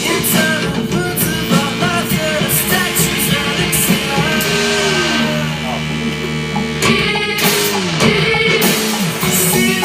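Loud rock-style music with held low notes and several downward sliding pitches.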